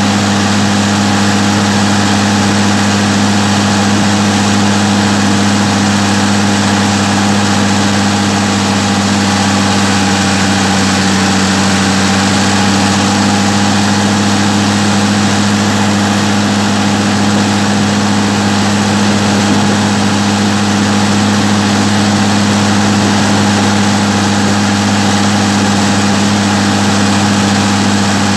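Massey Ferguson 399 tractor's six-cylinder diesel engine running steadily at an even pitch while the tractor drives along, heard loud and close from the driver's seat.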